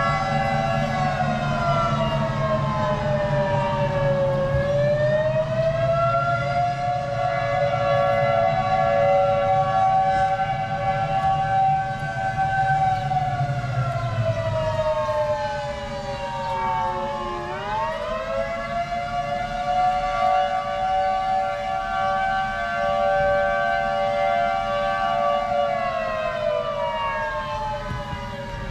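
Outdoor tornado warning siren wailing, several tones sounding together that slide down, climb back up and hold in slow cycles about twelve seconds long. It is heard from inside a moving car over a low engine and road rumble.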